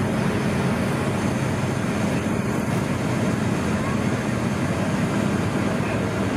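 Steady roar of a Boeing 737-800 on final approach heard from inside the cabin: jet engines and rushing air, with a strong low rumble.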